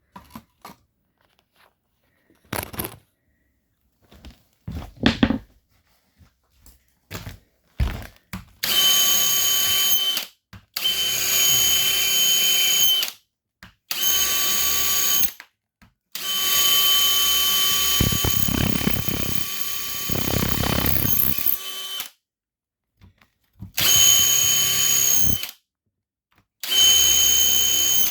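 Electric drill with a high-speed bit drilling into a mineralized fossil tree stump in coal: first some scattered knocks and clicks, then the drill runs in six bursts of a steady high whine, stopping and starting. The longest burst, about six seconds, has a coarse grinding underneath as the bit bites into the hard core.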